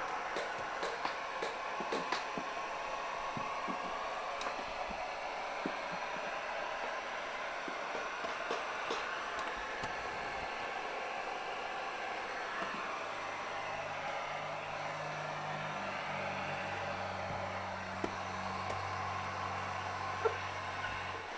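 Heat gun running with a steady blowing hiss, warming vinyl interior window trim so that its adhesive sticks. A few light ticks sound in the first seconds, and a low hum joins in the later part.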